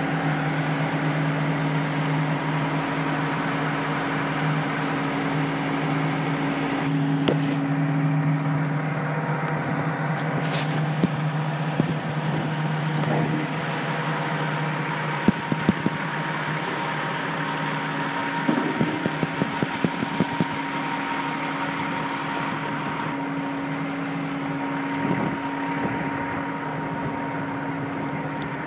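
John Deere 200LC excavator's diesel engine idling steadily, with a run of sharp clicks around the middle.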